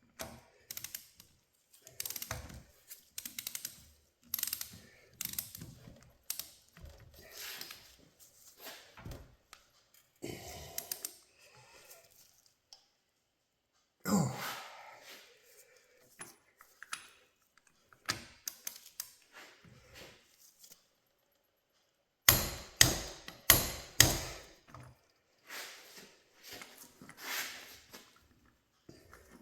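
Wrench and metal parts clicking, clinking and knocking against a John Deere 4020 hydraulic pump during reassembly. The sounds come irregularly, with a single louder knock near the middle and a quick run of five or six sharp, louder clicks about three quarters of the way through.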